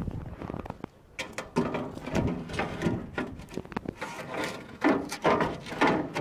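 Irregular knocks and clatter of equipment, a welding machine and electrodes, being handled and stowed in a storage cabinet, with a drawer or door moving.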